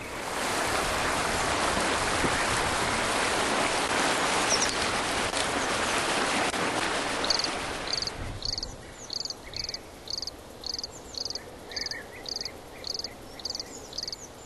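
A steady rushing noise fills the first half, then fades out about halfway through. A high chirping call takes over, repeating about twice a second.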